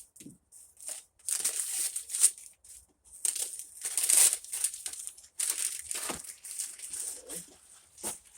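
Wrapping paper crinkling and tearing in irregular bursts as a gift-wrapped package is unwrapped by hand.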